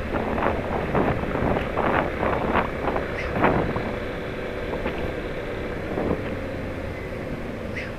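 Motorcycle engine running under way in traffic, with wind buffeting the microphone in gusts during the first half that settle to a steadier rush near the end.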